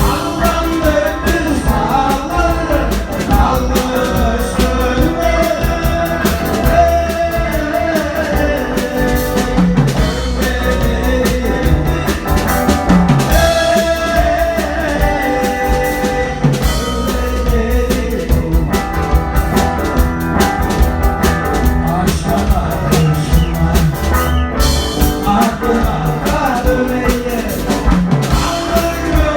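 Live band music: singing over drums and guitar, with a steady beat throughout.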